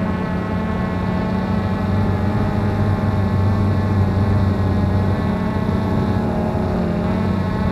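Cheerson CX-20 quadcopter's four brushless motors and propellers whirring steadily in flight, heard through the drone-mounted camera's own microphone. The pitch dips slightly near the end.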